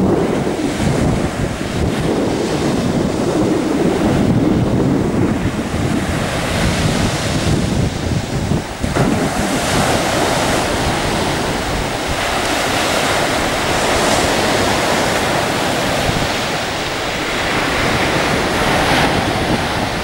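Black Sea surf breaking steadily on a sandy shore, with wind buffeting the microphone; the low wind rumble is strongest in the first half, and the hiss of the surf comes forward from about halfway through.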